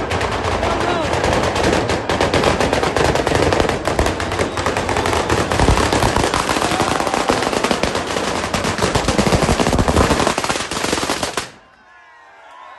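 Firecracker batteria: a long chain of firecrackers going off in a dense, rapid, unbroken crackle of bangs that stops abruptly about eleven and a half seconds in.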